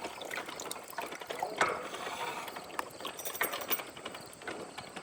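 Ten-weight non-detergent oil pouring and trickling into the gearbox of a new Aermotor windmill, with a few light clicks scattered through it.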